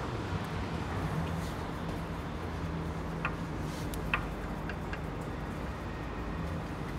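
Steady low hum of workshop background noise, with two light clicks about three and four seconds in as an aluminium rim button extension is screwed by hand into a steel laser aligner head.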